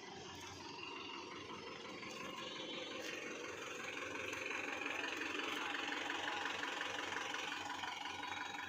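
An engine running steadily, growing louder over the first four or five seconds and then holding level.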